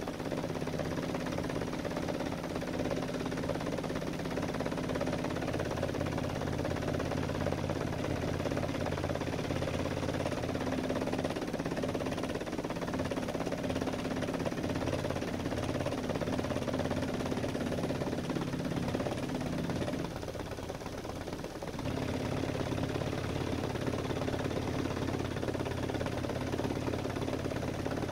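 An older vehicle's engine idling steadily as it warms up after a cold start, heard from inside the cabin. The sound dips briefly about twenty seconds in, then settles back.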